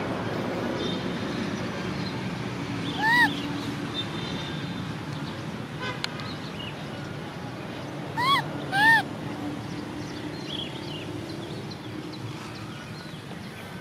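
Baby macaque crying: three short whimpering calls, each rising then falling in pitch, one about three seconds in and two in quick succession near the middle.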